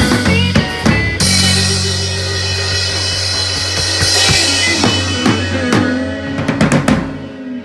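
Small rock band ending a blues song: an electric guitar through a Vox amp and a drum kit, a crash cymbal about a second in with a chord left ringing, then a run of drum hits near the end.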